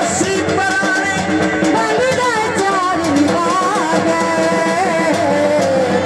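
Loud Punjabi folk music with steady drum beats under a sliding, ornamented melody line.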